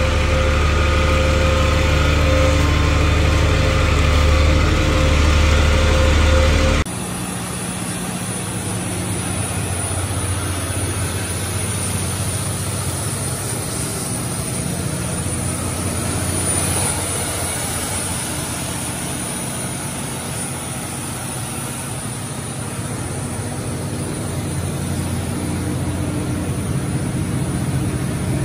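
Cummins natural-gas engine of a 200 kW generator set running steadily under heavy load, with a deep engine tone. About seven seconds in the sound drops abruptly and turns thinner, then carries on steadily with a faint high whine.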